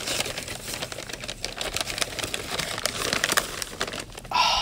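Brown kraft paper bag crinkling and rustling as it is unfolded, with irregular crackles throughout. A brief voice sound near the end.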